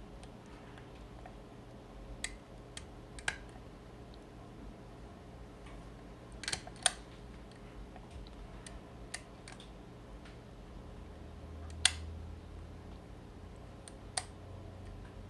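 Irregular small metallic clicks from lock picks working the levers inside a vintage US Mail 4-lever padlock, with a louder pair of clicks about halfway through and two more sharp clicks toward the end as the levers are lifted and fall.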